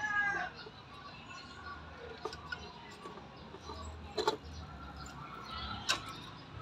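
A rooster's crow, ending about half a second in. Then faint background sounds with two sharp clicks or taps, about four and six seconds in.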